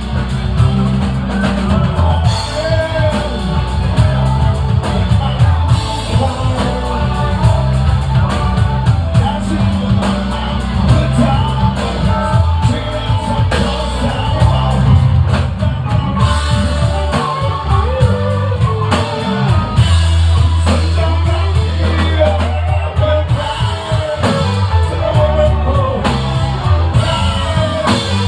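Live rock band playing: electric guitars, bass, drum kit and a lead singer, loud and continuous.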